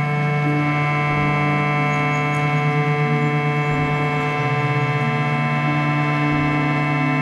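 Slow ambient drone music from a harmonium and modular synthesizer. A low note is held throughout and pulses slowly in places, while higher held notes shift every second or so.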